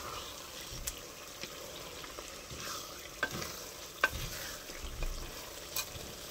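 Wooden spoon stirring and scraping minced meat and spinach around an aluminium pot, with a few sharp knocks of the spoon against the pot, over a faint steady sizzle of the mixture frying. The sizzle has nearly died away: the water has cooked off and the meat is frying in its own released oil, the sign that it is fully bhuna.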